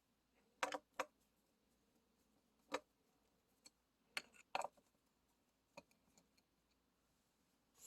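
Faint, irregular small clicks and ticks, about eight in all, from a screwdriver working the small screws out of a graphics card.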